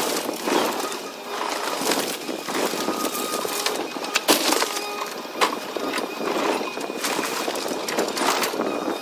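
Cat hydraulic excavator demolishing a wood-frame house: its engine and hydraulics run under a steady clatter of lumber cracking, splintering and falling as the bucket and thumb tear at the wall. There is one sharp loud crack about four seconds in and another about a second later.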